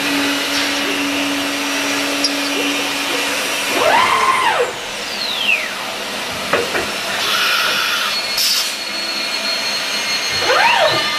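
CNC aluminium profile machining centre running with a steady whirring noise. About four seconds in and again near the end, its pitch sweeps up and falls back as motors speed up and slow down.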